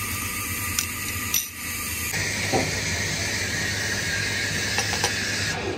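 Steady hissing background noise, with two faint clicks in the first second and a half; about two seconds in the hiss turns brighter and continues evenly.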